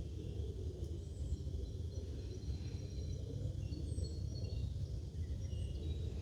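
Small birds chirping and twittering, in many short high notes, over a steady low rumble of outdoor background noise.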